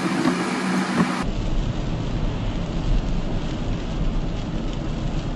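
Steady road and engine noise inside a moving minibus cabin at about 60 km/h, an even hiss over a low rumble, picked up by the dashcam's microphone. The low rumble comes in about a second in.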